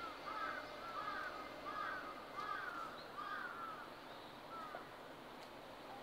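Jungle crow (large-billed crow) giving a run of about six evenly spaced caws, roughly one every 0.7 s, with a fainter caw near the end. It is the food-discovery call, which seems to summon other crows to the food.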